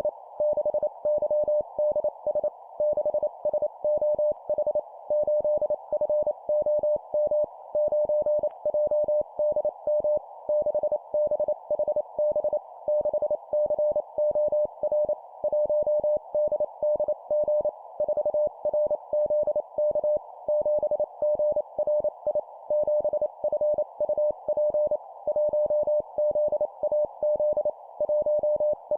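Morse code (CW) practice tone near 600 Hz keyed at 25 words per minute, rapid dots and dashes sending four-character groups of a number followed by three letters. It sounds over a steady hiss confined to a narrow band around the tone, like a receiver's CW filter.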